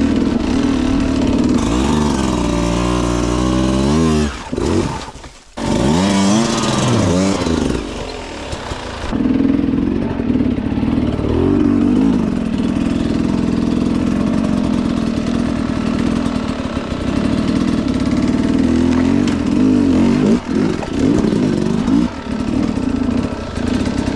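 Two-stroke dirt bike engine revving up and down over and over, its pitch rising and falling with the throttle. It dips briefly about five seconds in, then runs steadier under load.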